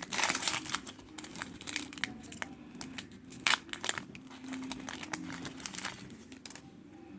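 Foil wrapper of a Pokémon Roaring Skies booster pack being torn open and crinkled by hand: an irregular run of sharp crackles and rustles, loudest in the first half second.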